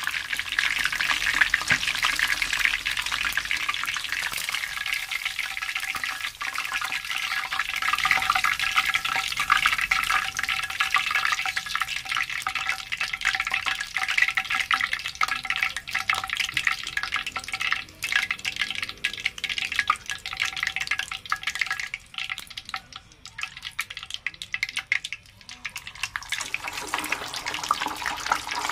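Chicken deep-frying in hot oil: a steady crackling sizzle with many fine pops, dropping quieter about three-quarters of the way through and picking up again near the end.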